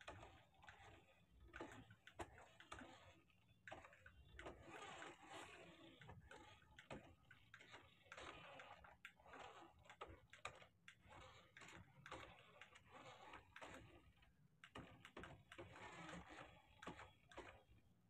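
Faint, irregular clicking and rattling in short spurts, from a battery toy RC car's small plastic drivetrain and wheels as it drives.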